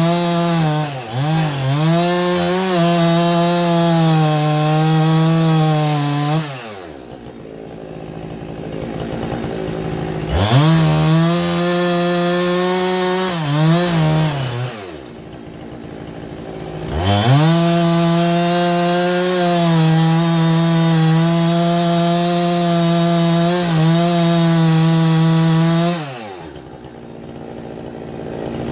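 Handheld electric power tool cutting or working wood: a steady motor whine, switched off three times, winding down in pitch about six seconds in, around fourteen seconds and near the end. It spins quickly back up in between, and a quieter rubbing, scraping noise fills the pauses.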